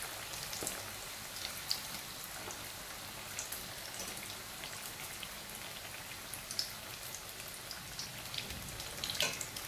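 Briouats, filled pastry triangles, deep-frying in a pan of hot oil: a steady sizzle with scattered crackling pops.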